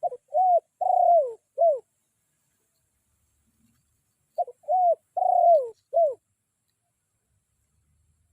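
Spotted dove (tekukur) decoy cooing to call out a rival: two phrases of four arched notes, about four seconds apart, the third note of each the longest.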